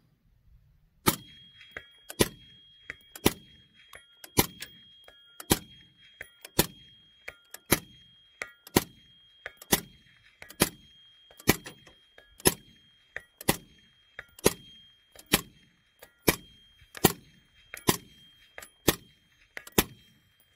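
Slow, steady string of about twenty suppressed rifle shots from an 11.5-inch AR-15 in 5.56 with a Silencerco Saker 556K suppressor, roughly one shot a second. Each shot is followed a moment later by a fainter sound.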